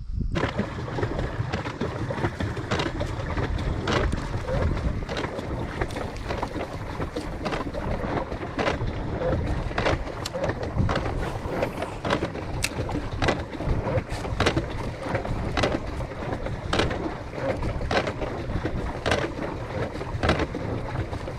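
Steady rumble of wind on the microphone and water moving along a small boat's hull, with scattered light clicks and knocks from rod, reel and tackle being handled.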